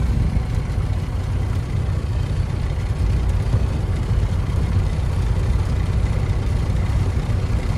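Semi-truck's diesel engine running steadily while the truck rolls slowly, heard from inside the cab as a steady low rumble.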